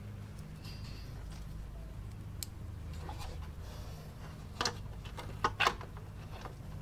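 Small metallic clicks and taps of a bolt and tool against the chrome front brake cover of a Honda Goldwing GL1500: one about two and a half seconds in, then several between four and a half and six seconds, over a steady low hum.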